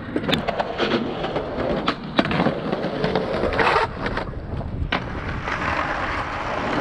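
Skateboard rolling on a steep bank, its wheels making a continuous rumble broken by several sharp clacks of the board and trucks.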